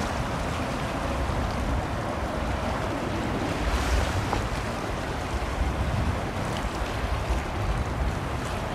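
Wind buffeting the microphone in uneven gusts over a steady rush of sea and waves.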